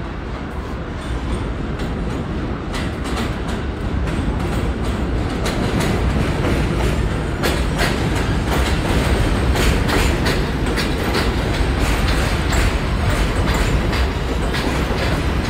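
New York City subway train running through a station with a steady rumble, its wheels clicking over rail joints, growing louder as it comes in.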